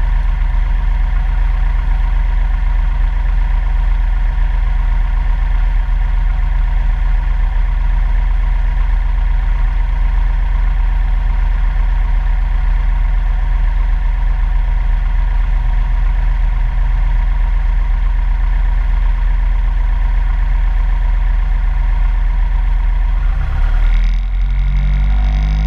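Single-engine light aircraft's piston engine and two-blade propeller running steadily at low taxi power, a constant drone heard from inside the cabin. About two seconds before the end the sound changes abruptly.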